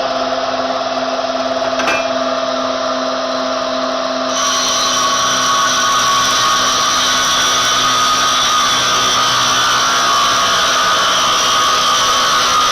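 Sawmill saw machinery running steadily with a high whine, which grows louder and fuller about four seconds in; a single brief knock near two seconds.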